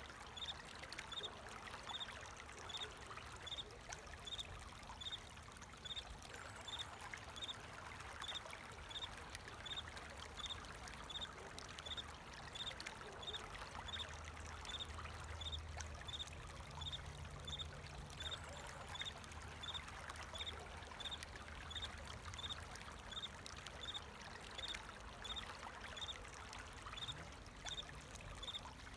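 Flowing water running steadily, with a cricket chirping over it in an even rhythm of about one and a half short high chirps a second.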